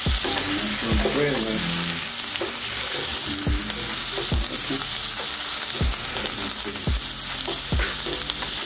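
Sliced green peppers and onions sizzling in a hot frying pan while being stirred with a wooden spatula. Low thumps come about once a second under the steady sizzle.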